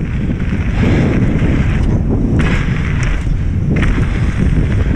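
Wind buffeting the camera's microphone during a fast electric mountain bike descent on a dirt trail. Tyres rumble over the ground and the bike rattles with short knocks over bumps.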